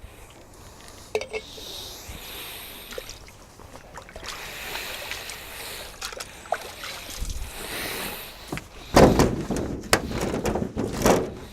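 Water sloshing and splashing while greenhouse panels are washed down with plain water, with scattered knocks and rubbing; the loudest part is two splashing bursts near the end.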